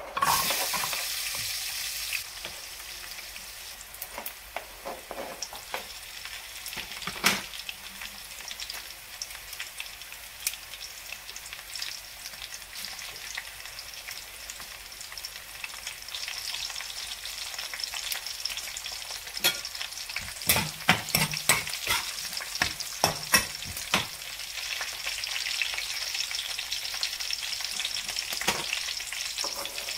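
Garlic cloves, dried red chillies and green chillies sizzling in hot oil in a frying pan, the sizzle jumping up suddenly as the garlic is tipped in at the start, with spattering crackles throughout. A run of sharp knocks a little over two-thirds of the way through.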